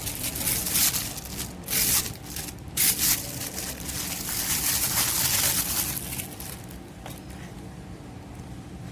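Packaging being handled: irregular crinkling and rustling with a few sharper crackles, easing off after about six seconds.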